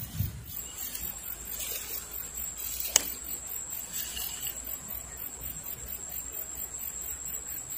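Insects chirring: a steady high-pitched buzz with a fast, even pulsing above it, and a single sharp click about three seconds in.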